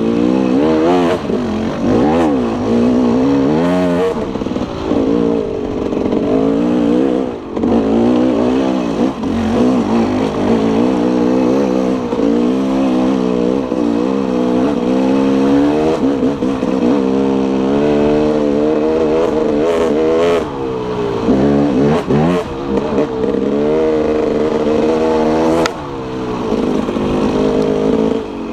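Dirt bike engine under way, its pitch rising and falling continually as the throttle is opened and rolled off, with a few short drops where the throttle closes.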